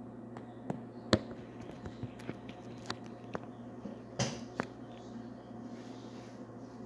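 Handling noise from a handheld phone camera: scattered light clicks and taps, the sharpest about a second in and a brief rustle past four seconds, over a steady low hum.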